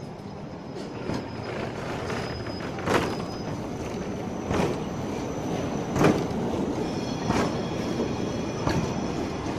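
Siemens ULF low-floor tram pulling away and passing close by, its running gear rumbling louder with a sharp clack every second and a half or so, coming slightly quicker as it gains speed. A faint high whine sits over it.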